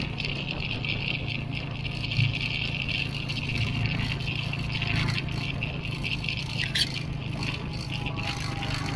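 Vehicle driving along a rutted dirt road: a steady engine drone with rattling, and two louder knocks from bumps, about two seconds in and near seven seconds.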